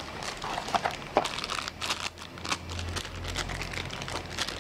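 Cardboard packaging being handled: a white cardboard insert lifted out of a small box, with light rustling, scraping and clicks, and crinkling of plastic wrap on an accessory.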